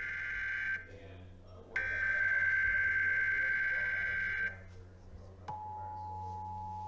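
Emergency Alert System SAME header data bursts, harsh warbling tones about a second apart, the second one lasting nearly three seconds; about five and a half seconds in, the steady two-tone EAS attention signal begins. This is the header-and-alert-tone sequence that opens a relayed Required Monthly Test.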